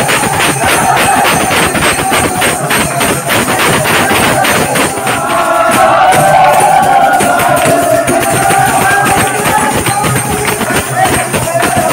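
Holi fagua folk music: a fast beat of drum and jingling metal percussion, with a group of men singing loudly together from about five seconds in.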